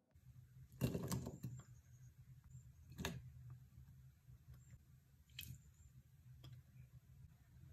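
Chopped fruit tipped from a white bowl into a glass bowl: a few faint knocks and clatters as the pieces land and the bowls touch, the loudest about a second in, others at about three and five and a half seconds, over a low steady hum.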